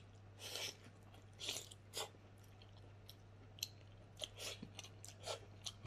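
A person biting and chewing smoked pork leg meat off the bone, with short, irregular, wet chewing and crunching sounds. A steady low hum runs underneath.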